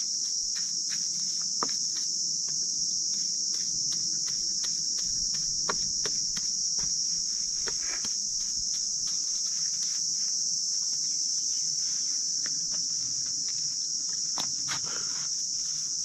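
A steady, high-pitched insect chorus drones without a break. Under it come faint scratching ticks and a few light taps from a paintbrush worked over a wooden post.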